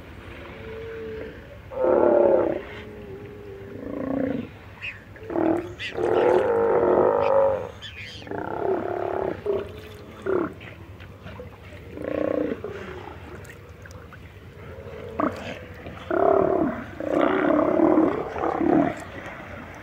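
A colony of sea lions calling from the rocks: repeated calls of up to a second or so each, coming one after another and sometimes overlapping, loudest about two seconds in, around six to seven seconds in, and again near the end.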